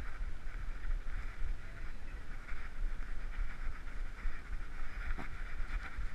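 Steady low rumble of wind and movement on a GoPro strapped to a walking dog's head, with a hissing sound that rises and falls over and over, like the dog panting.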